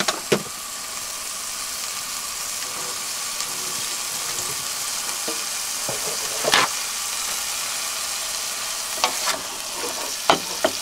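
Turkey mince frying in a saucepan, a steady sizzle, with a few sharp knocks of kitchen things, the loudest about two-thirds of the way in and several near the end.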